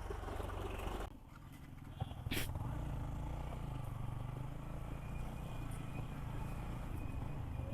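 Yamaha MT-15's single-cylinder engine running under way, heard from the rider's position. It drops off briefly about a second in, then picks up again and runs steadily.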